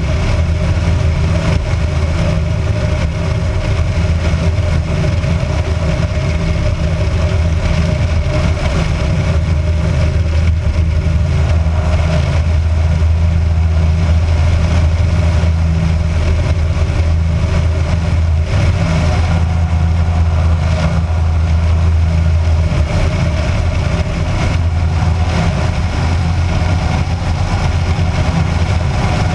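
Kitfox light aircraft's engine and propeller running steadily in flight, with wind rushing over the camera mounted outside under the wing.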